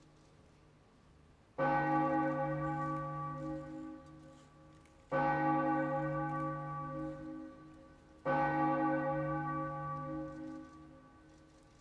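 A bell struck three times, about three seconds apart, each stroke ringing and slowly fading: the bell rung at Benediction as the monstrance with the Blessed Sacrament is raised in blessing.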